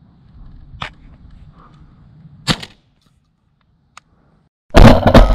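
Shotgun firing: two or three loud shots in quick succession near the end, after a single sharp crack about two and a half seconds in. Wind rumbles on the microphone beneath.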